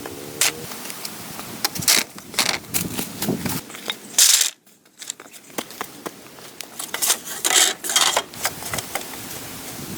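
Irregular sharp clicks, knocks and scrapes of hand work with wood, broken by a brief drop-out about four and a half seconds in.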